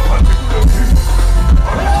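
Loud music over a PA sound system during a sound check: a heavy bass line under a steady drum beat.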